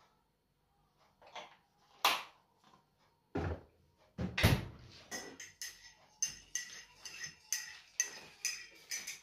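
Kitchen handling sounds: a few knocks and the dull thud of a fridge door shutting, then a metal spoon clinking rapidly and repeatedly against a ceramic mug, about three ringing clinks a second, as when stirring a drink.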